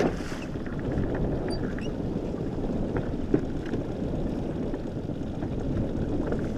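Steady low rumble of wind and water around a small inflatable boat trolling slowly at sea, with one short sharp knock a little over three seconds in.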